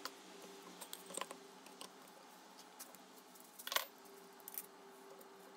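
Scattered light knocks and clicks of mesquite boards being handled and set into a flexible rubber mold, with one louder knock a little under four seconds in.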